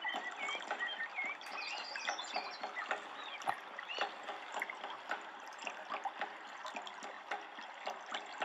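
Trickling water, a busy patter of small splashes, with short high chirps through the first two seconds or so.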